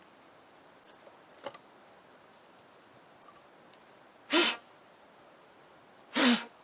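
Two sharp sneezes about two seconds apart, each a short burst.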